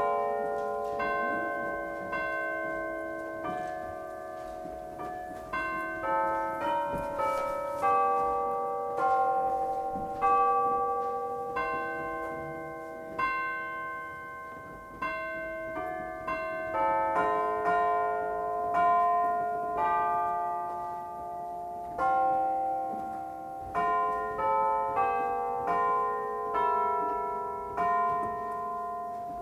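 Church electronic organ playing a slow postlude in a bell-like, piano-like voice: struck notes and chords that ring and fade one after another.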